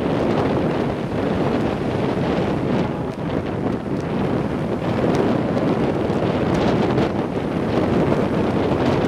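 Wind buffeting the microphone in a steady, loud rush, with surf breaking on the shore underneath.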